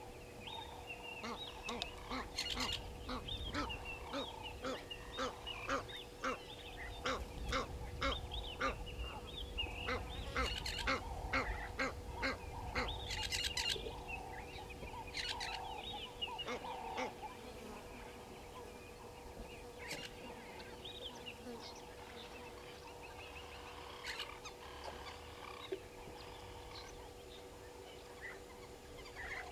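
Egyptian goose honking in a quick repeated series, about two calls a second, dying away after roughly fifteen seconds into fainter scattered bird calls.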